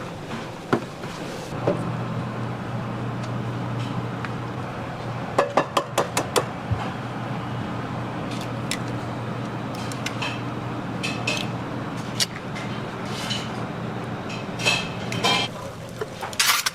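Kitchen utensils clinking and knocking against pots and dishes over a steady low hum, with a quick run of about six strikes midway and a few more near the end.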